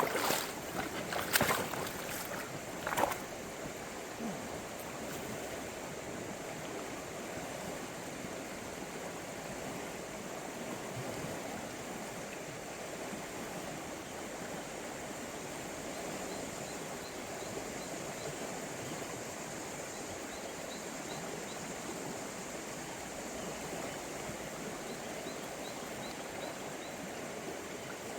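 Steady rush of the Shenandoah River's current, with a few sharp clicks in the first three seconds and faint quick high ticks a few times in the second half.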